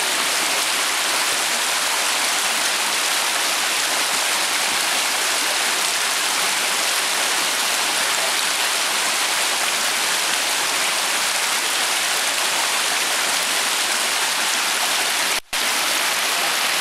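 A fast mountain stream rushing and splashing over rocks in a steady, even rush of water. It cuts out for an instant about a second before the end.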